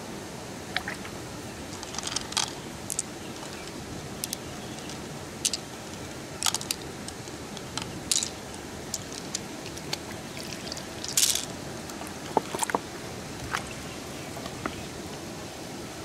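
Light, sharp clicks and taps, a dozen or so scattered irregularly, as pearls and mussel shell are handled: pearls picked out of the shell and clicking together in the hand. Under them a steady rush of running stream water.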